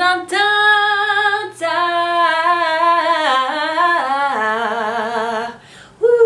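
A woman singing unaccompanied: a short held note, then a long phrase of sustained notes with vibrato that steps down in pitch, and a new note starting near the end.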